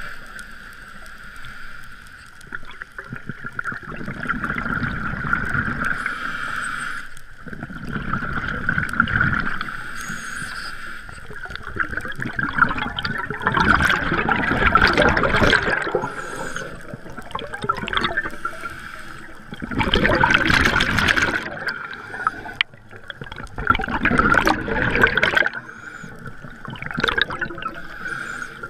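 Scuba diver breathing through a regulator underwater: bursts of exhaled bubbles gurgling every few seconds, loudest in the second half, over a steady high-pitched hum.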